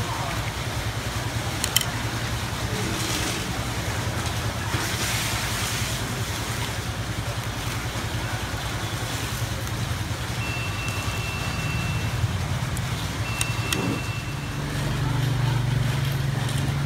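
Street traffic ambience: a steady low hum of motor vehicles with a haze of road noise, swelling near the end. A couple of sharp clicks and, twice in the second half, a thin high beep held for about a second.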